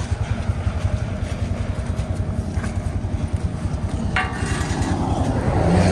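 Skid steer's engine idling steadily with a fast, even low throb, with a brief high squeak about four seconds in.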